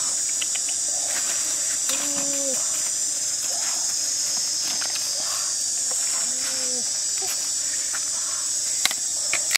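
Steady high-pitched chorus of forest insects, cicadas or crickets, buzzing without a break.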